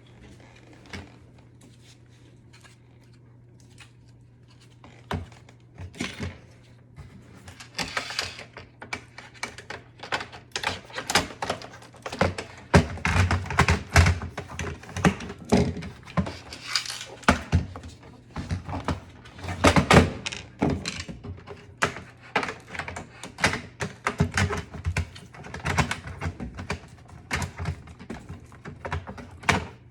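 Irregular clicks, knocks and thunks of dishwasher parts being handled during a control-panel replacement, quiet for the first few seconds, then clattering in quick clusters, over a steady low hum.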